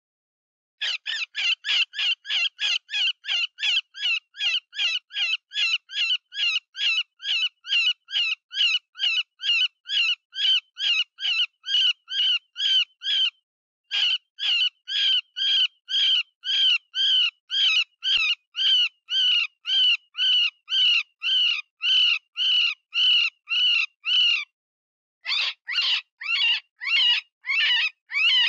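Cottontail rabbit distress cries, as used to lure predators: shrill, wavering squeals repeated rapidly at about three a second, broken by two short pauses.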